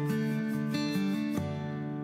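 Background music: a guitar playing a melody over chords, with a final chord struck about one and a half seconds in that rings out and fades.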